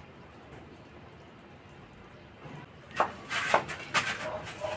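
A spoon clinking and scraping against a metal wok and plate while food is dished up: a few sharp clicks and knocks about three seconds in, after a quiet start.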